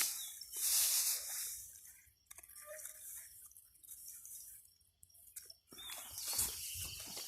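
A short hissing rustle at the start, then small wet drips and squelches, and footsteps near the end.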